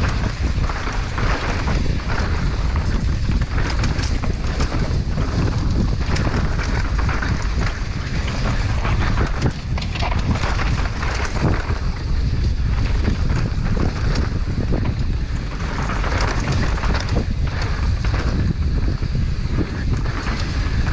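Wind buffeting the microphone on a fast mountain-bike descent, with the tyres rolling and skidding over loose, dusty dirt and rocks. Frequent sharp clatter and knocks come from the bike over rough ground.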